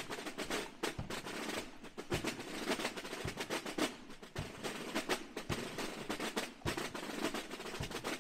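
Marching band's snare drums beating a street beat, with the bass drum marking the step about twice a second.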